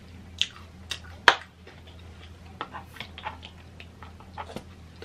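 Plastic squeeze bottle of garlic mayo being opened and squeezed out, making a run of short clicks and squirts. The sharpest click is about a second in.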